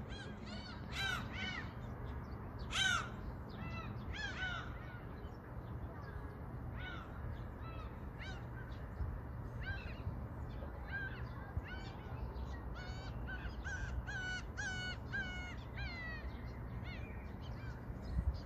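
A flock of birds giving many short, arching calls, some overlapping, over a steady low rumble. The calls thin out in the middle and pick up again after about twelve seconds.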